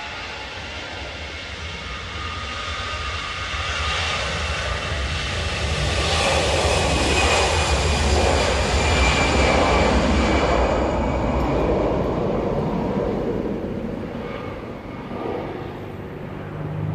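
Jet engines of an easyJet Airbus A320-family airliner at take-off thrust: a rumbling roar with a high whine that grows louder, peaks about halfway through as the aircraft passes, then fades away.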